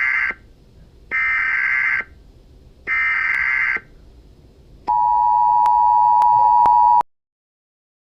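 Emergency Alert System tones: three buzzy bursts of SAME header data, each about a second long, then the steady two-tone EAS attention signal for about two seconds, which cuts off abruptly.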